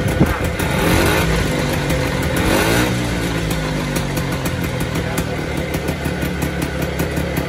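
Vintage Isomoto two-stroke motorcycle engine running on its stand, revved up and back down about one to three seconds in, then running on steadily.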